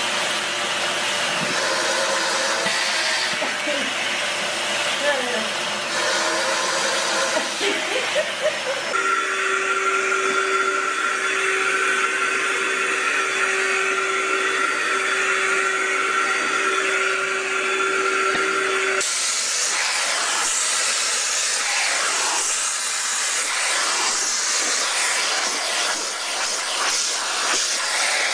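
Vacuum cleaners running in three short clips in a row: a steady hiss of suction throughout. The middle clip also has a steady high motor whine.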